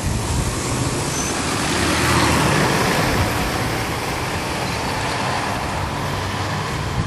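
Interior sound of a 2011 NABI 40-SFW transit bus under way: its Cummins ISL9 diesel engine and ZF Ecolife automatic transmission running with road noise. The sound grows louder about two seconds in, then holds steady.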